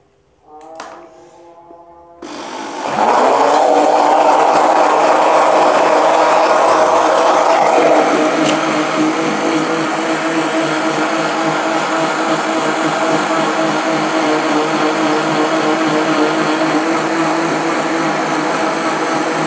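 Electric countertop blender switching on about two seconds in and running steadily, blending granulated sugar into water to dissolve it; it is a little louder for the first few seconds, then settles.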